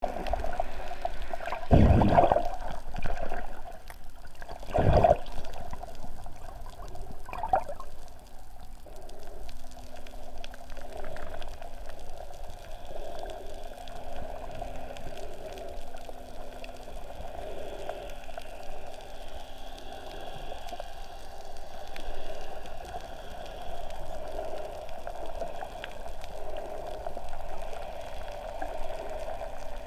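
Muffled underwater water sound heard through a submerged camera: gurgling and bubbling, with two louder swishes of water about two and five seconds in, then a steady muffled wash.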